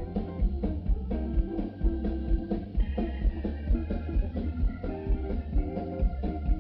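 Live blues band playing: drum kit keeping a steady beat, with bass, electric guitar and organ-like chords.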